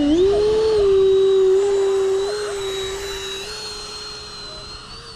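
Electric ducted fan of an E-flite Habu 70mm RC jet spooling up to a steady high whine, then fading over the last few seconds as the jet rolls away across the grass.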